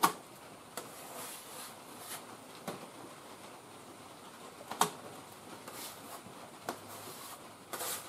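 Scattered light taps and rubbing of an applicator stick against the truck's sheet-metal cab corner as JB Weld epoxy is worked onto it, with a sharp knock right at the start and another about five seconds in.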